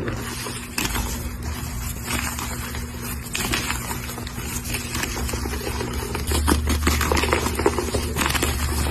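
A block of coloured gym chalk being crushed and crumbled, a dense run of dry crunches and small crackles that thickens about six seconds in.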